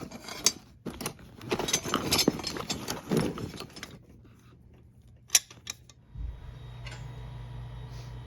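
Metal hand tools clattering and rattling as they are rummaged through, followed by a single sharp click about five seconds in. A steady low hum sets in about six seconds in.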